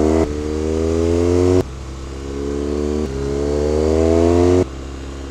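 BMW R1200GS flat-twin motorcycle engine under way, its revs climbing steadily under throttle and then dropping abruptly three times, with a sharp fall in loudness as the throttle is rolled off or a gear is changed.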